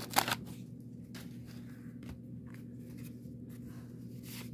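Wax-paper wrapper of a trading-card pack crinkling sharply just after the start as the cards are pulled out. Then soft rustling and sliding of the cardboard cards being handled, over a low steady hum.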